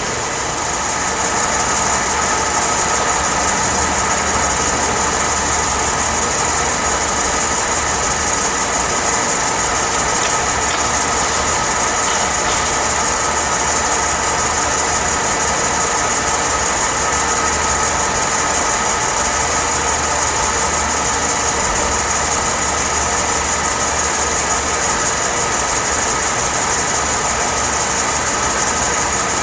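Enco LG2080DS 20-inch gap-bed engine lathe running steadily under power, a constant mechanical hum with a high whine from the spindle drive. It settles in at a slightly higher level about a second in.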